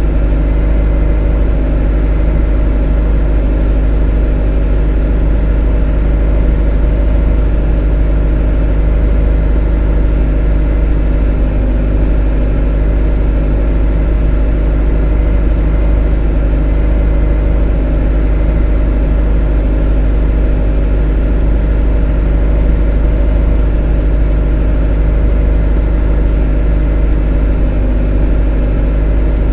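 A motor running steadily at a constant speed: a deep, low hum with a stack of steady overtones above it, unchanging throughout.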